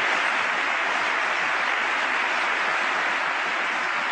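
A large audience applauding steadily, heard in a played-back broadcast recording of a speech.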